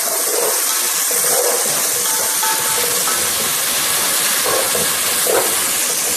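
Chopped onions sizzling steadily as they sauté in hot cooking oil in an aluminium pot, stirred with a wooden spatula.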